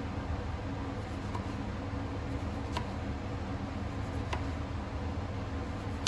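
Steady low mechanical hum, with two light clicks near the middle.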